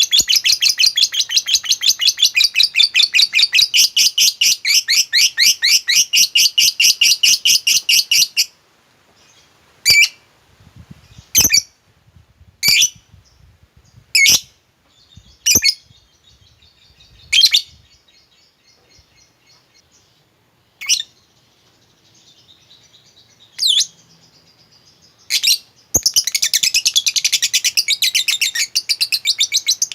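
Lovebird chattering in its long 'ngekek' song: a fast run of sharp, evenly repeated high notes for about eight seconds. Then come single sharp calls a second or two apart, and near the end another fast run starts up.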